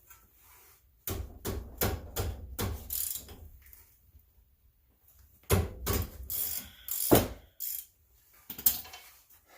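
Metal hand tools clicking and clanking while working on a car's front brake caliper. Two bursts of several quick knocks, the first about a second in and the second after about five seconds, then one last short clatter near the end.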